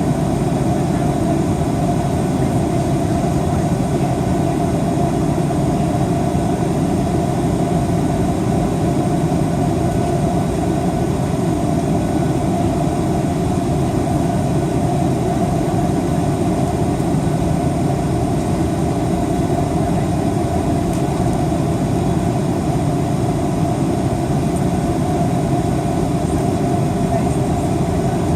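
Steady drone of a Boeing 737-800's cabin in flight, its CFM56-7B engines and the rushing airflow blending into one unchanging roar with a hum band in the middle.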